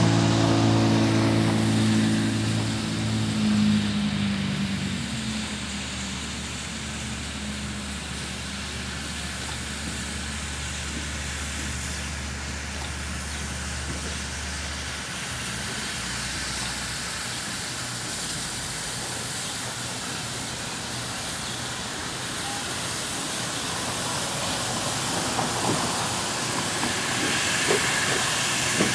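Norfolk & Western 611, a J-class 4-8-4 steam locomotive, rolling at low speed with a steady hiss of steam. A sustained low chord fades away over the first five seconds. Clanks and clicks grow louder near the end as the engine draws close.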